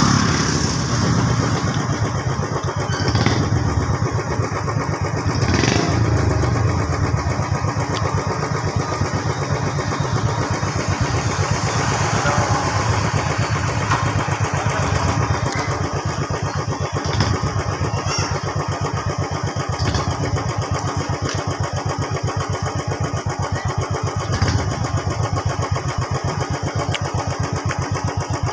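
Motorcycle engine idling steadily close by, a fast even putter that holds unchanged throughout.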